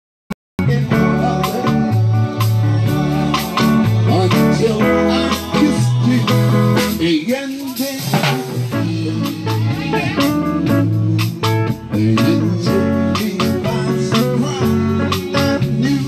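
Live band music: timbales struck with sticks over bass, guitar and drum kit. The bass drops out briefly about halfway through.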